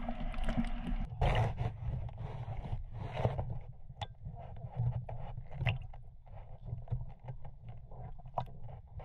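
Sea water sloshing at the surface for about the first second, then underwater ambience heard through a camera housing: a low rumble with scattered clicks and crackles.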